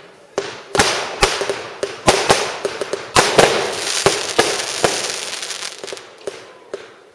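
Fireworks going off in a rapid barrage: a string of sharp bangs with crackling between them, thinning to scattered pops near the end.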